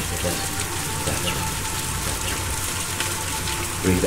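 Steady rain-like hiss from a recorded rain soundscape, over a low, steady hum.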